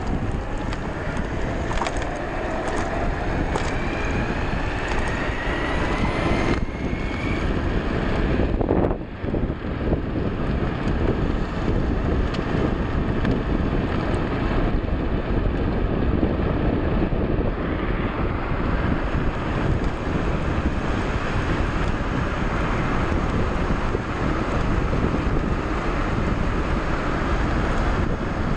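Wind rushing over the microphone of a rider on a Voro Motors Emove Roadrunner electric bike at speed, with a faint rising whine over the first several seconds as the bike picks up speed.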